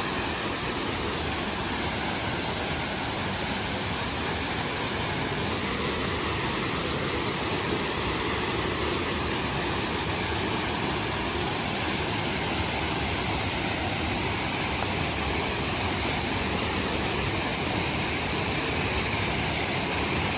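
Steady rushing of a waterfall about 14 metres high, running with a strong flow of water.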